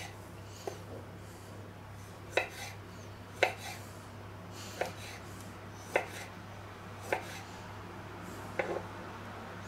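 Kitchen knife cutting cherry tomatoes on a wooden cutting board, the blade knocking on the board at uneven intervals, about seven times, roughly once a second.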